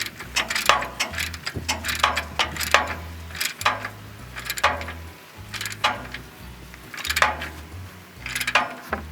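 Ratchet wrench clicking in short bursts of strokes with brief pauses between them, winding the thread-taped oil drain plug back into the sawmill's Kohler engine.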